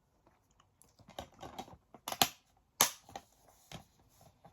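DVD set's case and discs being handled: a string of irregular clicks and taps, the loudest a little past two seconds in and again near three seconds.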